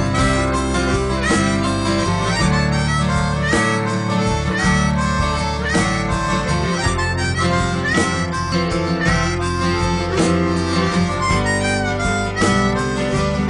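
Music: a melody of held notes with upward pitch bends over a steady bass line and chordal accompaniment.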